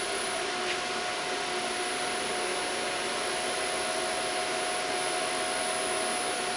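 Fryer VB-100 CNC vertical machining center running with its spindle turning: a steady airy whir with a constant mid-pitched whine and a faint high whine.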